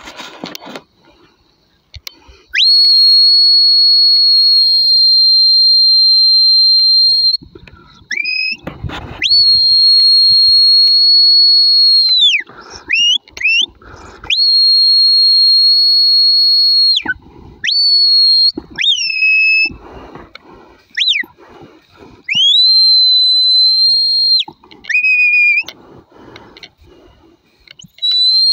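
Herding whistle commands to a working sheepdog: long, steady, high notes, several held for two to five seconds, with short rising and falling whistle notes between them.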